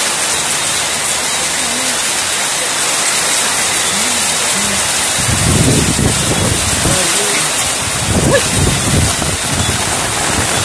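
Heavy rain pouring down steadily, a dense even hiss. From about halfway through, a low rumble joins it.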